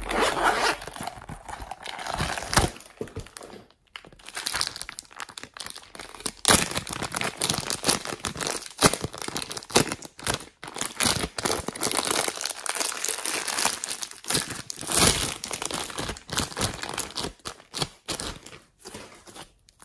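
Clear plastic zip bag crinkling and rustling as hands handle it and pull green slime out of it: dense, irregular crackling with a few short pauses.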